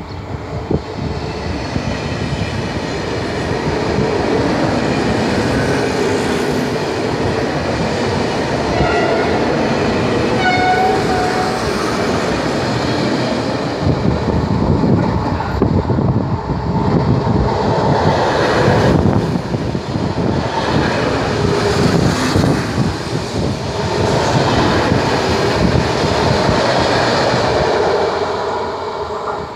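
Italo AGV high-speed electric train passing close by: a loud rush of wheels on rail that builds over the first few seconds, stays loud, and fades near the end. Two short horn notes sound about nine and ten and a half seconds in.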